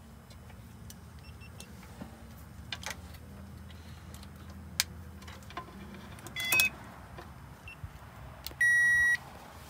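Electronic beep: one steady high tone lasting about half a second near the end, after a shorter two-tone chirp around the middle, over a low steady hum and scattered small clicks.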